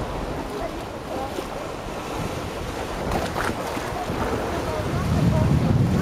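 Small Red Sea waves lapping and washing over a shallow, stony reef shore. Wind buffets the microphone, its low rumble growing stronger near the end.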